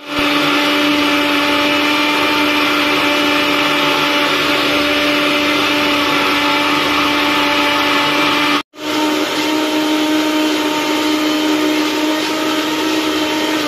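Bajaj electric mixer grinder running at full speed, grinding ginger, garlic and green chillies into a wet masala paste: a loud, steady motor whine. It breaks off for a moment about two-thirds of the way in, then runs on.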